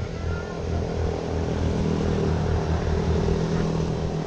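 A small engine running steadily nearby with a low, pulsing hum that grows a little louder in the middle.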